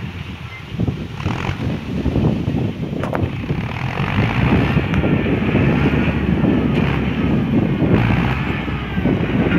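Tractor diesel engine working under load while pulling a disc harrow across tilled soil, growing louder over the first few seconds as it comes closer.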